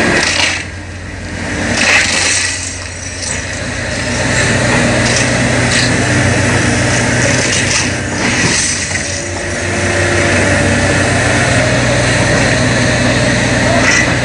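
Diesel engines of hydraulic grapple excavators running steadily under load, with a few short knocks from the grapple working the boat hulls. The loudness briefly dips about a second in and again about nine seconds in.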